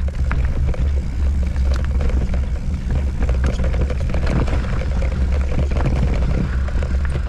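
Wind rumbling on the camera microphone, with a mountain bike rattling over the trail in many small clicks and knocks as it is ridden. The rumble stops abruptly at the very end.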